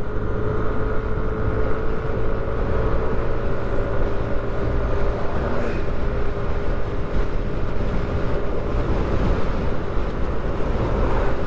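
Motorbike engine running steadily at cruising speed on the road, its note holding level, under heavy wind rush on the microphone.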